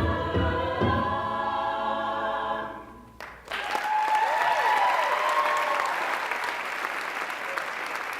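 An a cappella vocal group holds the final chord of a song, with many voices sustaining steady notes. It fades out about three seconds in. The audience then breaks into applause, with a few whoops.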